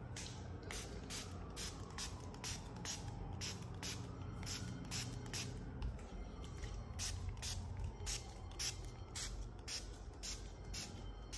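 Small hand-held pump spray bottle being squeezed over and over, short hissing spritzes at about two to three a second with a brief pause near the middle.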